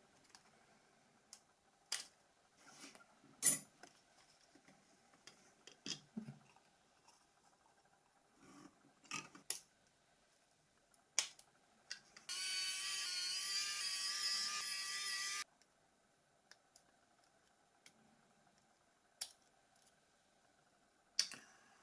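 Scattered light clicks and taps from small parts of a Nokia 6600i phone being handled during disassembly and cleaning. About halfway through, a small electric motor runs with a steady high whine for about three seconds, then cuts off suddenly.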